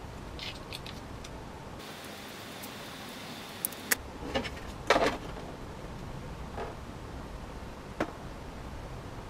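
A few faint snips of Lexan scissors trimming a thin plastic ear cap, then scattered clicks and knocks of the plastic piece and helmet being handled as the cap is fitted against the helmet, the loudest knock about five seconds in.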